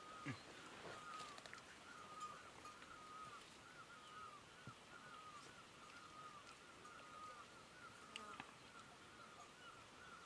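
Faint bird call: a steady series of short chirps, about two a second, repeating without a break over quiet outdoor ambience, with a few soft clicks.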